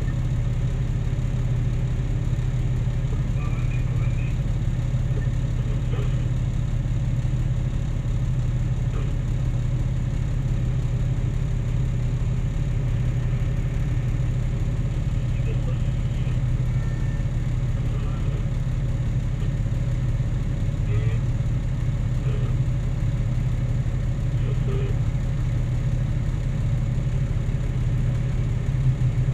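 Heavy diesel engines of a Caterpillar 777E haul truck and a Caterpillar 6020B hydraulic mining shovel running with a steady low drone while the shovel swings a loaded bucket over the truck to load it.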